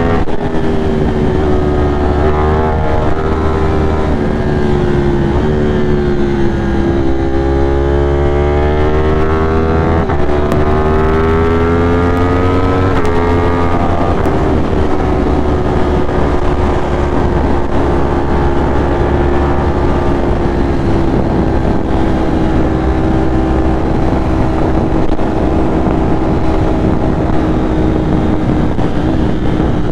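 Ducati Streetfighter V4's V4 engine under way, revving up through the gears with sharp drops in pitch at upshifts around ten and thirteen seconds in. It then settles into a steady cruise in top gear, its pitch easing slowly down.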